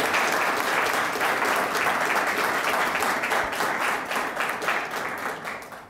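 Audience applauding, many hands clapping, dying away near the end.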